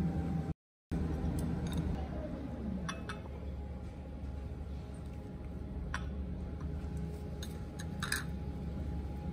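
Chopsticks clicking lightly against a ceramic noodle bowl a handful of times, over a steady low background hum.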